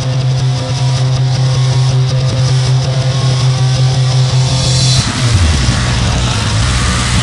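Loud distorted rock music, guitar-led. A low note is held for about five seconds, then slides down in pitch and gives way to a noisy, crashing wash.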